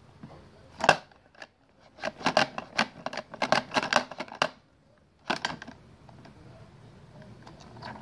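Hard plastic toys clicking and clattering as they are handled. There is one sharp click about a second in, then a quick run of clicks from about two to four and a half seconds, and a few more just after five seconds.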